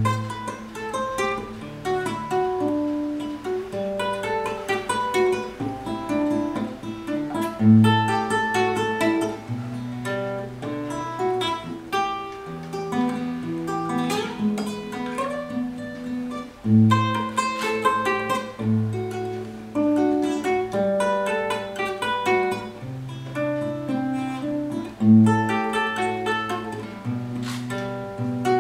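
Solo classical guitar played fingerstyle: flowing arpeggiated notes over held bass notes, with strong bass accents every few seconds.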